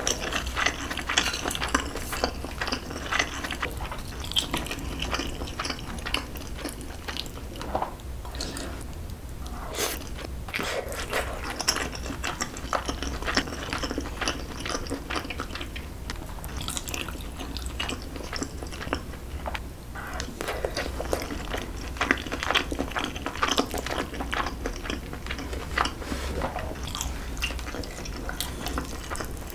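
Close-miked mukbang eating: wet chewing of mouthfuls of braised aged kimchi, pork rib meat and rice, with soft crunches and the light click of chopsticks on the dishes.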